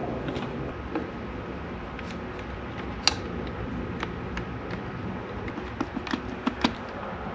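Scattered light clicks and taps of hand tools and wire on a DIN-rail circuit breaker as a red wire is trimmed, pushed into the breaker's terminal and its screw tightened with a screwdriver. The clicks come more thickly near the end, over a faint steady hum.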